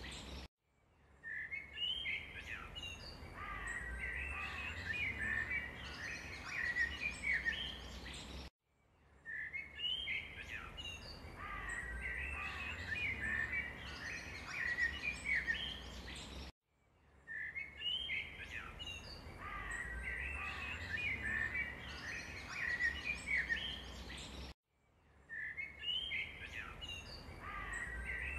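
Birds chirping and singing over a low rumble, as a looped ambience track: the same roughly eight-second stretch repeats, each time after a brief cut to silence.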